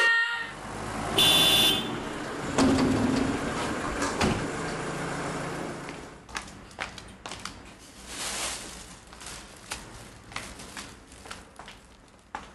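Indoor handling noises and a door, then a run of light, irregular footsteps and knocks that grow fainter.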